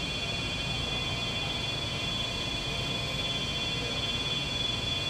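Steady background noise of a cleanroom's air handling and equipment: an even hiss and low hum with several faint, steady high-pitched tones that do not change.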